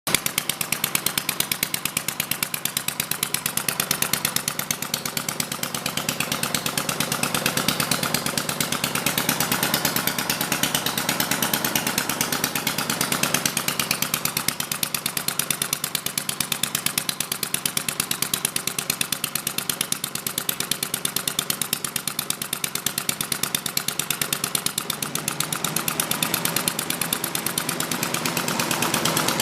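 Home-built sideshaft horizontal internal-combustion engine running at a steady governed speed, its firing a rapid, even beat of sharp knocks.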